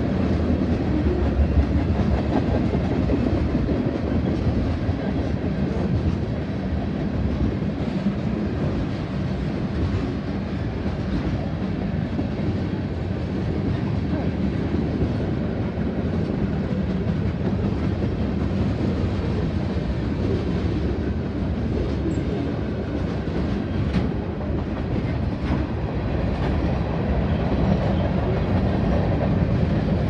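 Freight train cars rolling steadily past at close range, their steel wheels running on the rails with a continuous low rumble.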